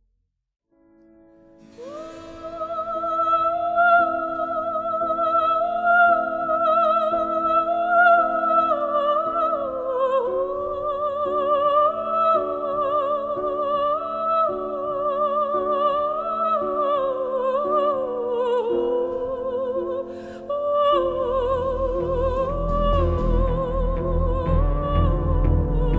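Background music: a high, operatic-style voice sings long notes with heavy vibrato over a slowly stepping accompaniment, starting about two seconds in. A deeper low layer joins about 21 seconds in.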